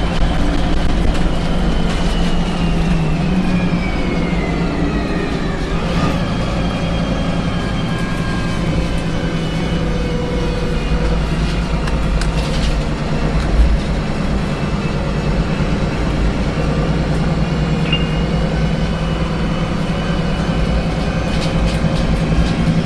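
Interior of a VDL SB200 single-deck bus under way: a steady low drone from engine and road, with a high whine that falls in pitch over the first six seconds and then holds steady. Light rattles and clicks from the bus body come through now and then.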